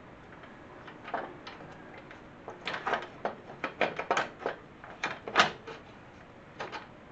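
Irregular metal knocks and rattles from a garden tractor's sheet-metal steering tower and steering shaft being worked into place by hand, the loudest knock about five seconds in.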